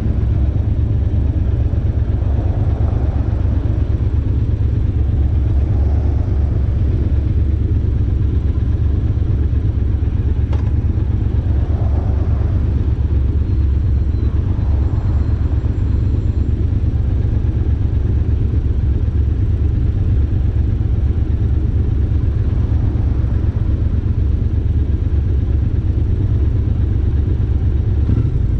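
Triumph Bobber's 1200 cc parallel-twin engine idling steadily with a low rumble, breathing through the stock exhaust with a Motone X-pipe and a DNA air filter.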